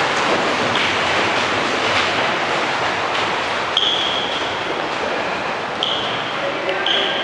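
Steady rushing noise with footfalls while running with a handheld camera down an echoing stone corridor. Three short, high squeaks come about four, six and seven seconds in.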